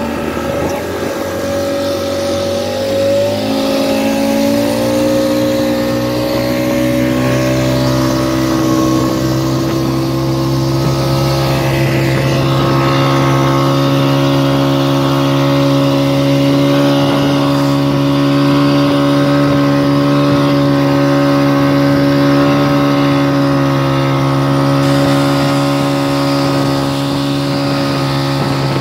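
Speedboat engine revving up over the first few seconds, then running steadily at high speed under the load of towing an inflatable tube, with water rushing past the hull.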